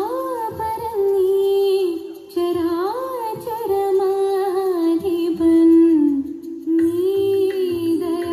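A song played for a dance: a voice sings a slow melody in long held notes that bend up and down, with a short break about two seconds in.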